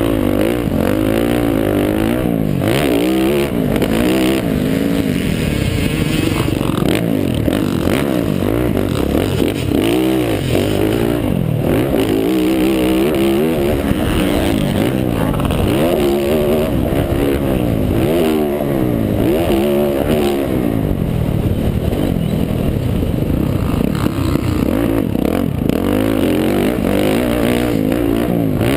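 Yamaha YZ450F's 450cc single-cylinder four-stroke engine, heard close up from the bike, revving under hard throttle and dropping off again and again every couple of seconds.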